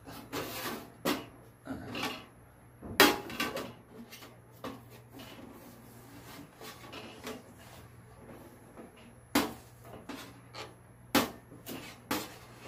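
Knife and plate knocking and clinking on a stainless-steel tray as a half watermelon is cut, a handful of separate sharp knocks with the loudest about three seconds in.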